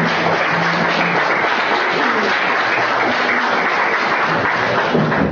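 Audience in a meeting room applauding steadily.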